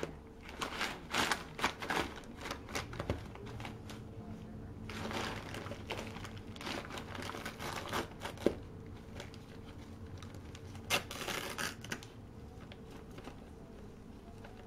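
Brown kraft packing paper crinkling and rustling in irregular bursts as a cat paws and burrows into it inside a cardboard box, quieter over the last few seconds.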